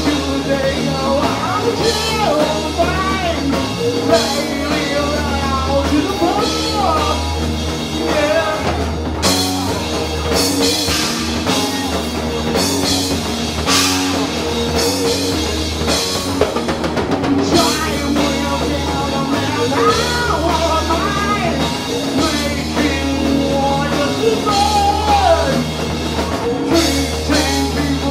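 Live rock band playing loud and steady, with distorted electric guitar and a drum kit.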